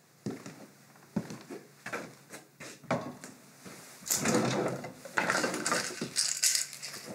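A kitchen drawer pulled open and its contents rummaged through: a few separate knocks and clicks, then from about four seconds in a busier rattling and rustling of things being moved about.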